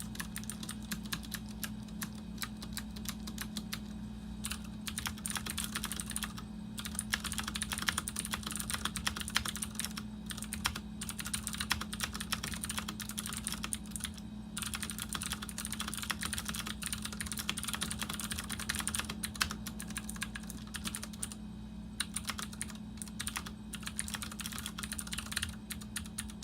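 Fast typing on a Ducky One 2 TKL mechanical keyboard with clicky Cherry MX Blue switches: a dense run of sharp keystroke clicks, broken by a few short pauses. A steady low hum sits underneath.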